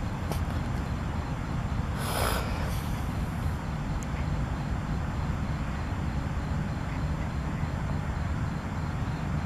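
Steady low outdoor rumble, like wind on the microphone or distant traffic, with a brief hissing burst about two seconds in.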